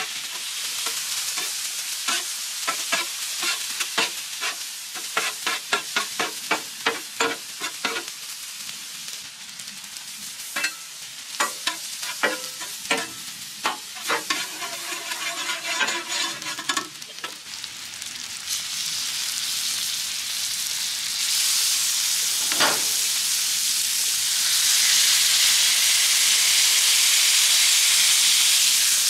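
Metal spatula scraping and tapping on a hot flat-top griddle, tossing sliced onions and peppers that sizzle underneath, in quick repeated strokes for the first half. In the second half the strokes stop and the sizzle grows, getting loud and steady near the end as beef patties are smashed onto the griddle.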